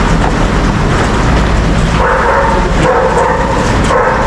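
A steady, loud low engine rumble, with short pitched cries over it twice, the second near the end.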